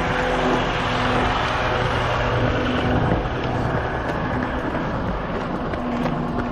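Steady rushing wind and movement noise on the microphone of a camera carried by a runner.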